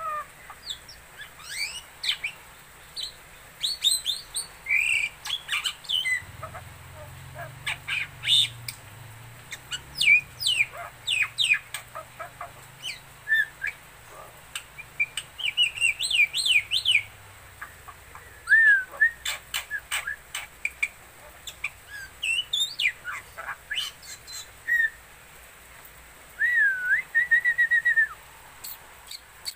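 Black-winged myna singing a varied song of short chirps, whistles and sharp clicks in quick irregular phrases, with a rapid trill near the end.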